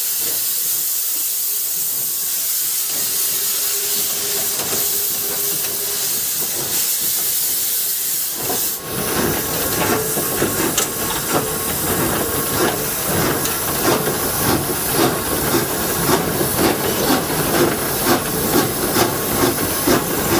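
Steady hiss of steam from an 1897 Baldwin steam locomotive, then about eight seconds in a louder, rapid rhythmic chuffing and clatter starts up.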